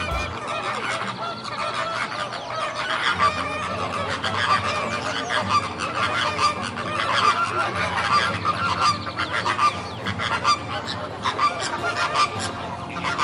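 A flock of waterfowl calling, many short calls overlapping one another without a break.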